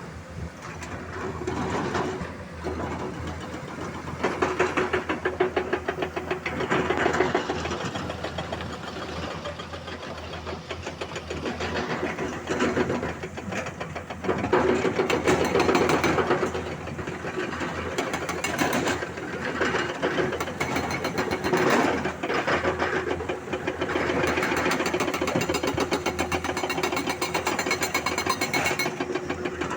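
Hydraulic excavator's diesel engine running with a fast, even pulsing beat, getting louder in surges several times as it works.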